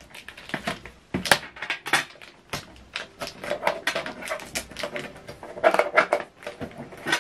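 Protective tape and plastic packaging being pulled off a new inkjet printer by hand: an irregular run of clicks, taps and crinkly rustles from the plastic casing and packing material.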